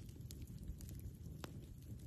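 Campfire wood crackling with scattered small snaps and one sharper pop about a second and a half in, over a steady low rumble.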